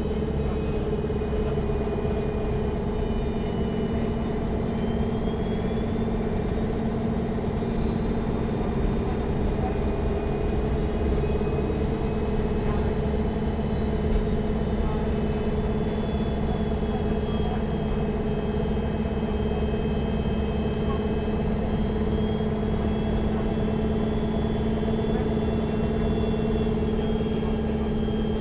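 Neoplan N4516 Centroliner Evolution city bus's diesel engine running steadily, heard from inside the passenger cabin during a ride: a constant low hum with a faint high whine that rises a few seconds in and sinks back slowly in the second half.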